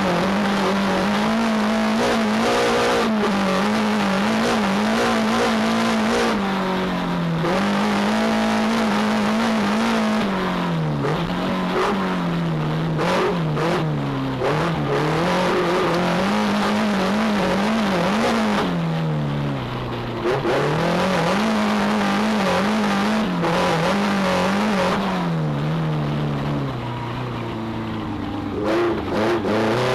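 Racing car's engine heard from inside the cockpit, running hard, its pitch falling and climbing back several times as the car slows and accelerates again, over a loud rush of road and wind noise.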